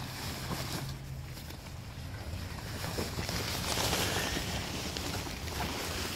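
Rustling and crumpling of the Gazelle T4 tent's fabric as it is stuffed into its carry bag, louder for a second or two around the middle.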